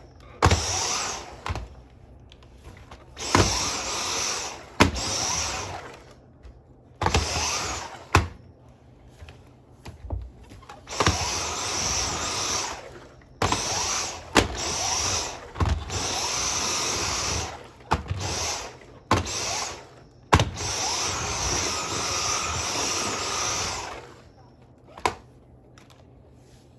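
Dyson V10 cordless stick vacuum motor switching on and off again and again, in about ten high-pitched bursts of one to three seconds, with a sharp click at several of the starts. The machine is one that has lost its suction.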